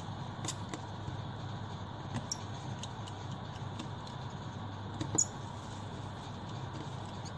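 Scattered small clicks and scrapes of a hand tool prying at the plastic loudspeaker module and housing of an opened smartphone, with a sharper click about five seconds in, over a steady low hum.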